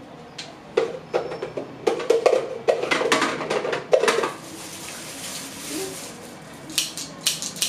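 Kitchen utensils clacking and rattling as they are put into a utensil holder: a quick run of clicks and knocks over the first few seconds, then a few more near the end.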